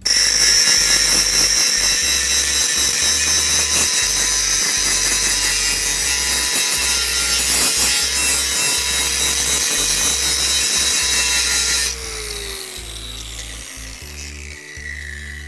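Angle grinder fitted with a thick grinding disc grinding down welds on a steel frame, a loud, steady grinding. About twelve seconds in it is switched off and the motor winds down with a falling whine.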